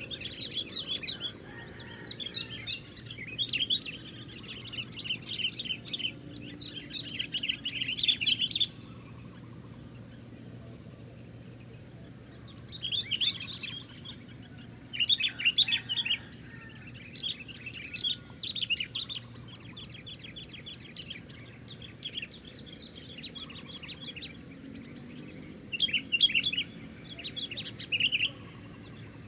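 Sooty-headed bulbuls calling in bursts of rapid, chattering notes: a few seconds of calling, then a pause, several times over. This is the aggressive calling a decoy bulbul uses to provoke wild rivals.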